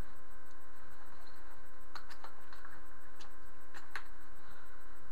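Steady electrical hum, with a few faint clicks and ticks from about two seconds in as a nylon duty belt and its holsters are handled and unfastened.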